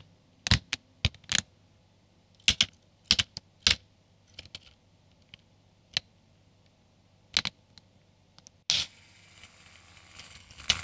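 Lego Technic plastic parts being pressed and snapped together by hand: a series of separate sharp clicks. About nine seconds in, the electric motor on the base starts and the assembled joint spins with a steady whir of plastic gears and axles.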